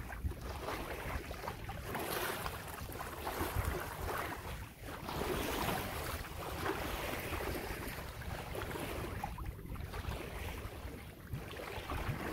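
Wind buffeting the microphone, with water washing and splashing along a sailboat's hull under way.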